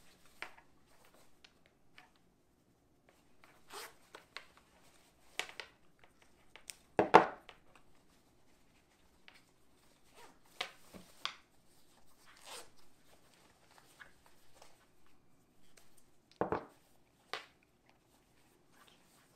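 Rustles and short rasps from a pair of heated gloves being handled, in scattered strokes, the loudest about seven seconds in.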